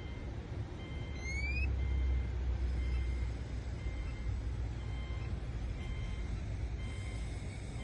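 2008 Subaru Outback with its low engine rumble swelling about a second and a half in as it starts on the newly programmed key, while the car's warning chime repeats in short, evenly spaced beeps. A short rising chirp sounds about a second in.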